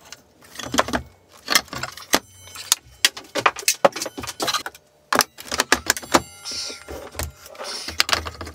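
Metal saw parts and hand tools clinking and clattering in quick, irregular knocks as the tilt-lock assembly at the back of a mitre saw is taken apart and swapped, with two short, fast rattles, about two seconds in and again around six seconds.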